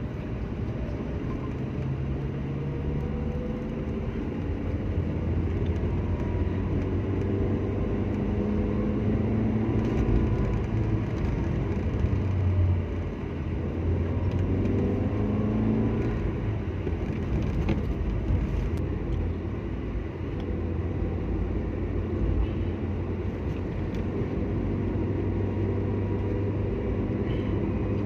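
Car engine and road noise heard from inside the cabin while driving: a steady low drone whose engine tone rises and falls a few times as the revs change.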